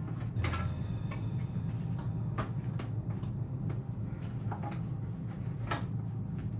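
Scattered light clicks and knocks at irregular times over a steady low hum.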